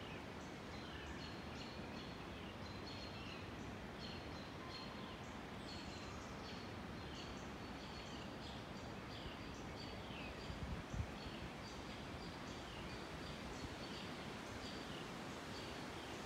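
Woodland birds chirping, with short high descending notes repeating over and over against a steady outdoor hiss. A brief low bump comes about two-thirds of the way through.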